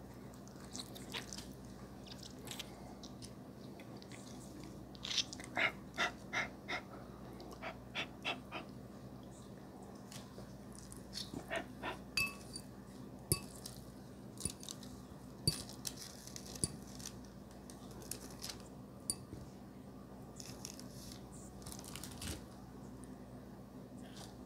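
Close-miked eating of noodles: chewing and wet mouth clicks, with a quick run of smacks about five seconds in, and occasional sharp clicks of a metal fork against a glass bowl.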